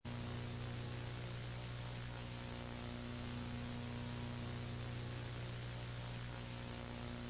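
Steady electrical hum with a hiss of static, like a dead broadcast signal. It starts abruptly and cuts off sharply near the end.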